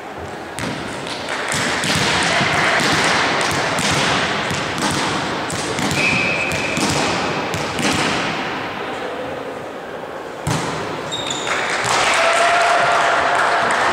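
Volleyball play in a sports hall: repeated ball hits and thuds echoing in the hall, with players' voices, and one sharp hit about ten seconds in.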